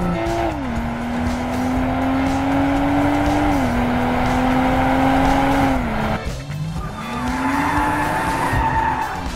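BMW 2 Series Coupé engine accelerating hard through the gears. The note climbs and drops with each upshift, about half a second, three and a half seconds and six seconds in, then climbs again near the end.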